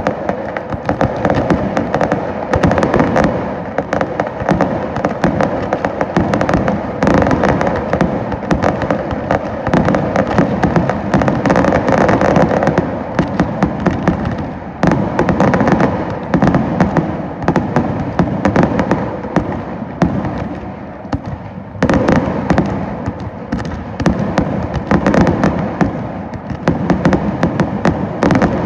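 Aerial fireworks display: a dense, continuous barrage of bangs and crackling bursts, easing briefly twice before picking up again.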